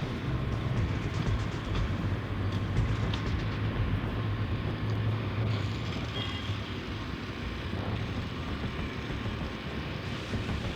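Street traffic with a heavy vehicle's engine running close by. Its low hum is strong through the first half and eases off after about five and a half seconds.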